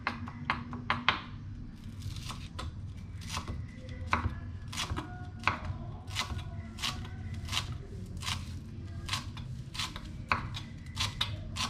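Knife chopping food on a cutting board with sharp, even strokes, about two a second, over a low steady hum.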